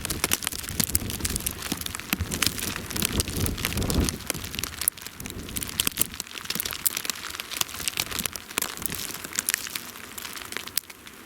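Blizzard: wind-driven snow pattering in dense, irregular ticks against the microphone and nearby surfaces. Low wind buffeting on the microphone dies away about four seconds in.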